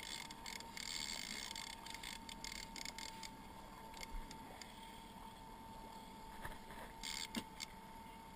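Boat's outboard motor running steadily with a constant hum, with scattered light clicks and knocks over it, the densest in the first three seconds and again about seven seconds in.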